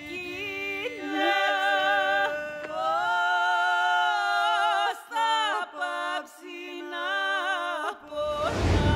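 Unaccompanied singing: a slow vocal melody with long, wavering held notes. Near the end a rising whoosh with a low rumble swells in.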